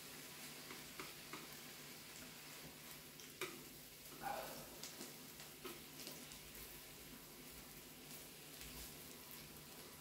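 Food sizzling faintly on a Korean barbecue grill, with scattered clicks and taps. There is a sharper click about three and a half seconds in, followed by a brief squeak.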